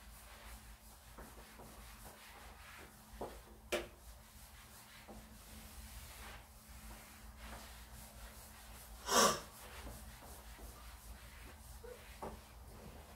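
A whiteboard eraser being rubbed over a whiteboard, wiping off marker writing in repeated soft strokes. There are a couple of light taps about four seconds in, and one louder short swish about nine seconds in.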